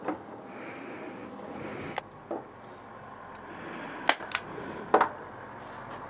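A handful of sharp clicks from a hand stapler fastening a motorcycle seat cover: two about two seconds in, then three more between four and five seconds in.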